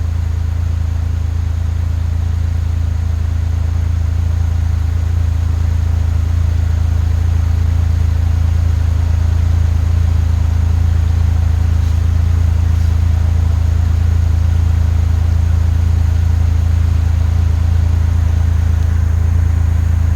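A high-running creek rushing over rocks, a loud, steady low roar of water that grows slightly louder.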